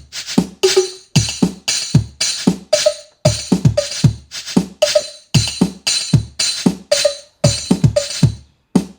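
Linn LM-1 drum machine playing a pattern from its freshly revived sequencer: sampled kick drum strikes that fall in pitch, noisy snare-like hits and short pitched drum tones in a steady repeating rhythm. The hi-hat voice is still silent from the bit-rotten EPROMs.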